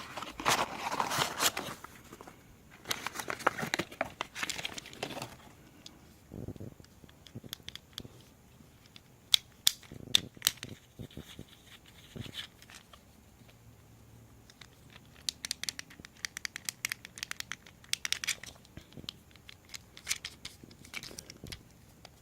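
Plastic packaging crinkling and tearing as fidget cube packs are opened, followed by many scattered small clicks and taps from handling the boxes and cubes.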